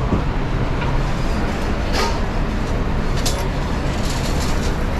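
Steady roar of a commercial kitchen's exhaust hoods and line, with a few short sharp clatters of utensils or pans.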